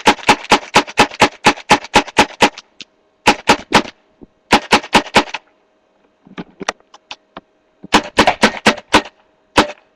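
Hopper-fed paintball gun firing rapid strings of sharp shots, about five a second, in several bursts with short pauses between them.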